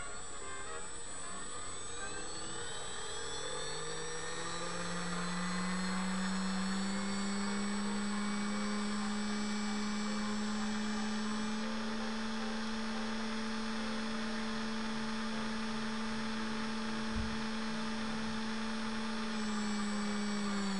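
Small brushless outrunner motor spinning up over the first few seconds to a steady whine, then winding down right at the end, run to check its balance. A single short knock about 17 seconds in.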